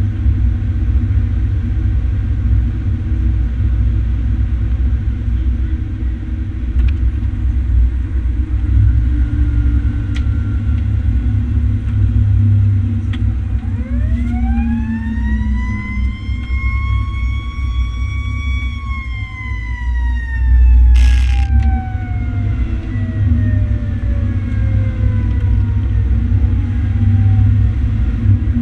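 A fire engine's siren winds up over about five seconds, holds briefly, then winds slowly down to a low growl, the rise and long coast-down of a mechanical siren. It sounds over the truck's own loud engine and road rumble, with a short loud blast partway through the wind-down.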